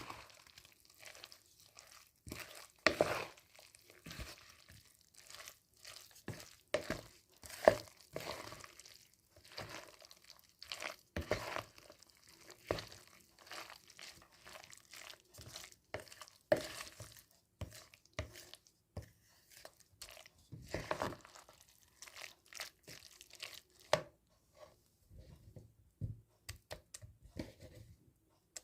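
Kitchen food-preparation handling sounds: irregular knocks and clicks with bursts of rustling or tearing, scattered through the whole stretch.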